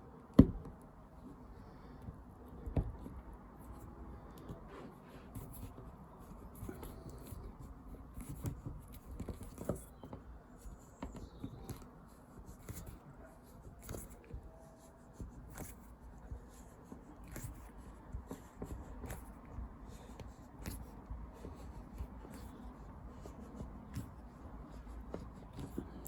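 Hand work refitting window glass into a rubber glazing seal: small scattered clicks, scrapes and ticks, with a sharp knock just after the start and a second, softer one about two seconds later.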